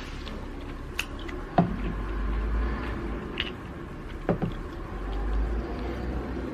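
A person eating close to the microphone: low chewing sounds, with a few sharp clicks of a spoon against the plate.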